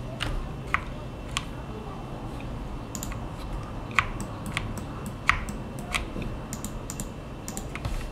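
Computer keyboard keys and mouse buttons clicking: irregular single clicks, a dozen or more, spaced from under half a second to over a second apart, as bones are extruded and placed in Blender with the E and G shortcuts.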